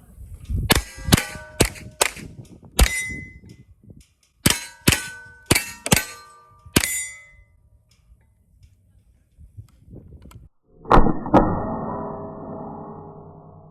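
.22 rimfire rifle shots at steel target plates, each hit ringing the plate: two quick runs of five shots about half a second apart. About eleven seconds in comes a louder knock with a long fading ring.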